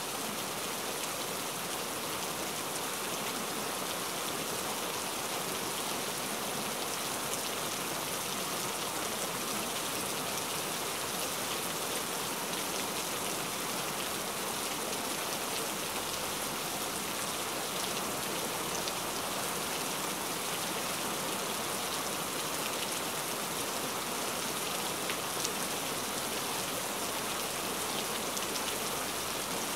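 Steady rain falling: an even hiss with the patter of many small drops, unchanging throughout.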